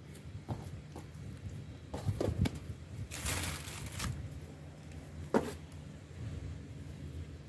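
Hands shaping and pressing bread dough on a floured metal tray: soft knocks, a rustle of about a second, and one sharp tap against the tray near the end, over a low steady hum.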